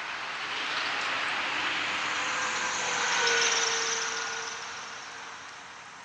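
A vehicle passing by: a rushing noise that swells, peaks a little past the middle and fades away.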